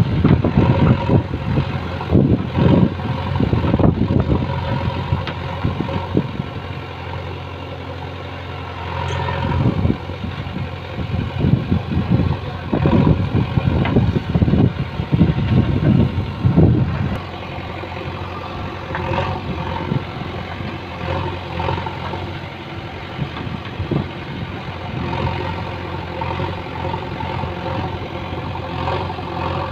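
JCB backhoe loader's diesel engine running as the backhoe arm digs soil, with repeated knocks and clatter from the bucket and earth through roughly the first half, then steadier running.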